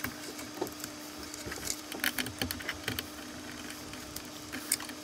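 Hookup wires with crimped ferrules being handled at stepper-driver terminal blocks: scattered small clicks and rustles, over a steady faint hum.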